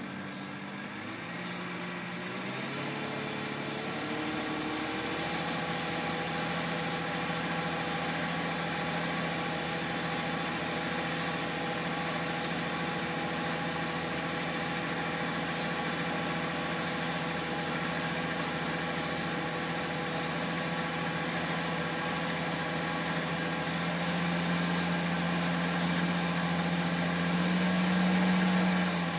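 BMW E46 320i's M54B22 2.2-litre straight-six, stationary in D with throttle and brake applied together, revs rising over the first few seconds and then held steady under load, getting louder near the end. Under this load it makes a bright rattling noise at the front right whose cause is unknown; with the car standing still, the owner rules out a wheel bearing.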